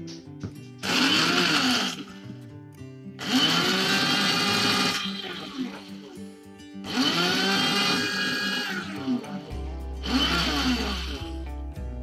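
Vintage electric blade coffee grinder pulsed four times, each burst of one to two seconds winding up and down as its blade chops chillies. Acoustic guitar music plays underneath.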